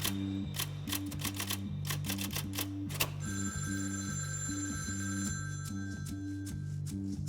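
A telephone ringing with a steady, high, bell-like tone, starting about three seconds in and stopping near the end. Throughout there is film score with a repeating bass pattern, and rapid clicking in the first half.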